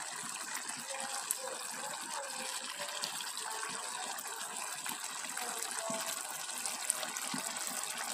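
Fish stew in a coconut-milk sauce simmering in a pan: a steady bubbling hiss with a few small pops.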